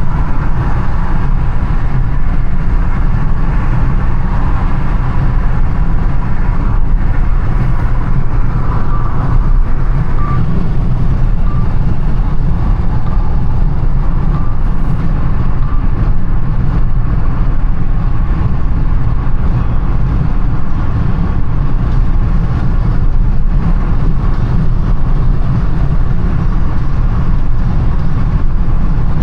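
A car driving through city traffic: a steady low rumble of engine and road noise with traffic noise around it.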